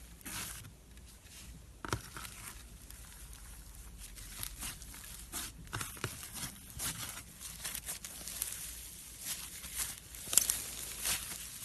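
Slime being squeezed and worked by hand, giving off irregular sticky crackles and small pops, with a sharper pop near the end.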